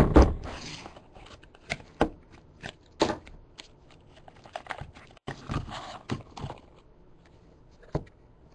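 Cardboard trading-card box and cards being handled: two sharp knocks at the start, then scattered taps, scrapes and rustles as the cards are taken out.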